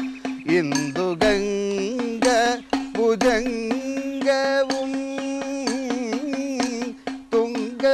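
Sopanam singing: a man's voice sings long, wavering held notes over a steady drone, with idakka (Kerala hourglass drum) strokes from a stick falling between the phrases.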